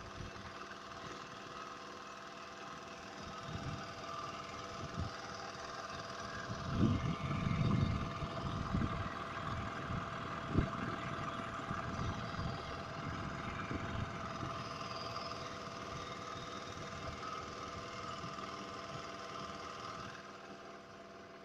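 A small engine runs steadily with an even hum. Irregular low thumps and rumbles come over it, heaviest about seven seconds in, with one sharp knock a few seconds later.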